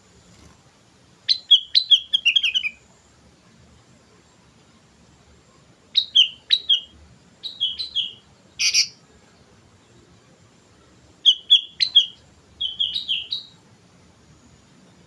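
Sooty-headed bulbul singing in short, bubbly phrases of whistled notes that drop in pitch. There are about six phrases with pauses of a few seconds between them, and one sharper, louder note in the middle.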